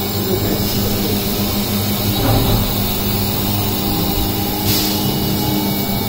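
CNC vertical milling machine running, its spindle and end mill cutting grooves into a clamped sheet: a steady machine hum with a constant low tone, under an even hiss from the cut and the coolant spray.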